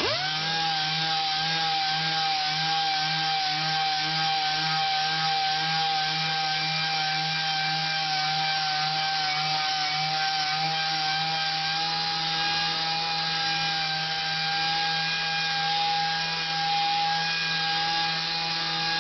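Random orbital (DA) sander with a 150-grit disc sanding a Corian solid-surface countertop to take out a deep scratch. It spins up at the start, then runs with a steady whine.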